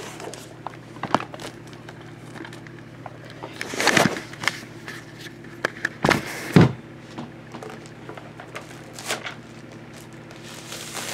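Hands handling a cardboard keyboard box and its plastic wrap: scattered rustles, taps and knocks, the loudest two sharp knocks about six seconds in.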